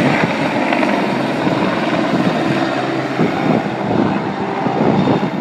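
Light helicopter taking off and flying away low, its rotor beating with a steady rapid chop over the engine noise.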